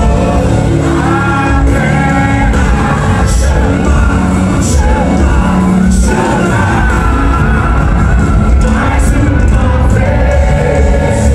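Live worship music amplified through a large hall's PA speakers: singing over a full band with a strong bass.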